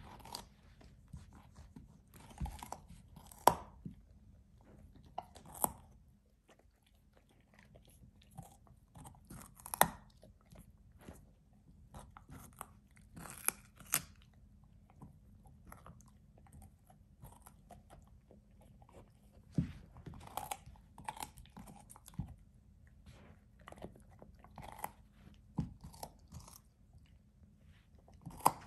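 A puppy chewing and crunching a raw carrot, biting off and gnawing pieces in irregular crunches. A few of the crunches are sharper and louder.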